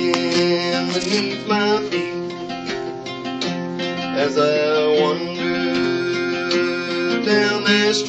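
Two acoustic guitars strummed and picked together in a steady rhythm, with a man singing along.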